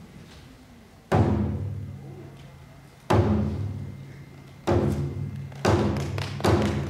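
Shamisen struck with a plectrum, playing single deep notes that ring and fade. The first comes about a second in, then they follow roughly two seconds apart, coming closer together near the end: the opening of a puppet play's musical accompaniment.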